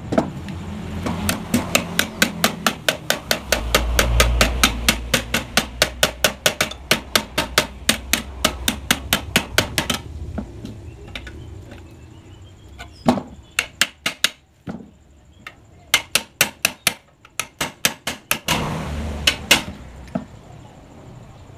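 Rapid hammer blows on the steel muffler of a Yamaha RX-King exhaust being opened up and gutted to give a louder note. The blows come at about four or five a second for some nine seconds. After a pause they come again in shorter quick runs.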